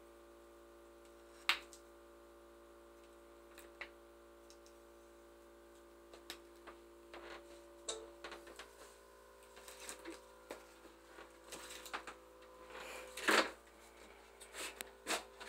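Plastic dialysis tubing and bagged solution being handled during setup of a peritoneal dialysis cycler: scattered light clicks and rustles, thicker in the second half, with one sharp click early and a louder knock about thirteen seconds in, over a steady hum.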